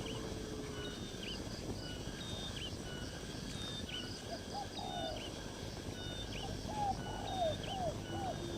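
Birds calling over a steady outdoor background: a short high chirp repeats regularly about every second and a half, and from about halfway a run of short, lower arched calls comes in quick succession.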